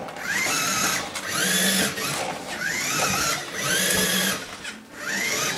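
Small electric motor of a toy remote-control car whining in about five short bursts, each rising in pitch as the car speeds up.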